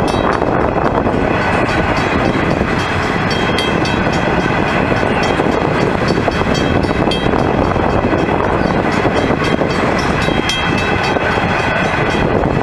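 A coal train's hopper wagons rolling past: a steady, loud rumble of steel wheels on rail, with occasional clicks as the wheels cross the rail joints.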